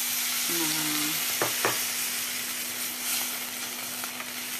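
Beef-skin krecek in chilli sauce sizzling in a hot stainless steel pan just after water has been poured in, while a metal spatula stirs it. The spatula clicks twice against the pan about a second and a half in.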